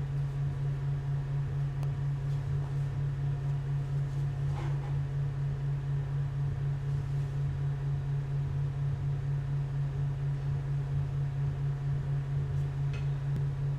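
A small electric motor running with a steady low hum and a quick, even pulsing.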